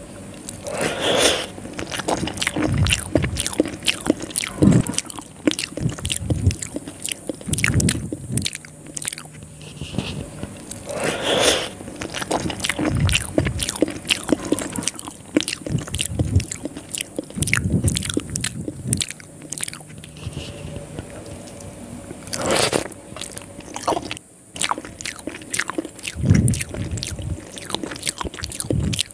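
Close-miked eating of soft rice noodles soaked in sweet coconut milk: biting and chewing, with many wet mouth clicks and smacks.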